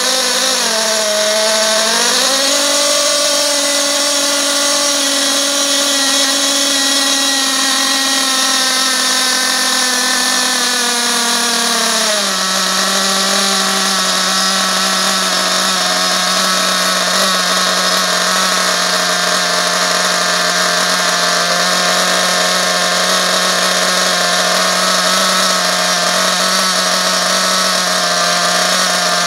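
RB Concepts C4 nitro two-stroke glow engine running at a high, steady idle on its first run while its carburetor is tuned. Its pitch dips and recovers in the first couple of seconds, then drops suddenly to a lower steady idle about twelve seconds in.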